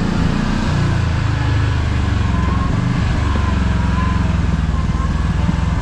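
Kawasaki KRX side-by-side's engine running steadily at low speed, heard on board.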